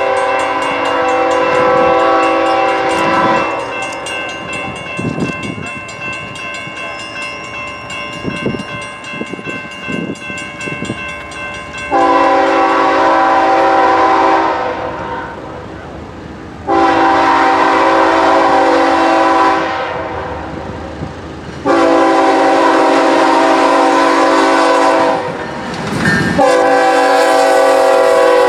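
Multi-note air horn of an approaching freight locomotive sounding a series of long blasts, about five of them with short pauses between. Between blasts the train rumbles, and near the end the locomotives pass close by as the horn sounds again.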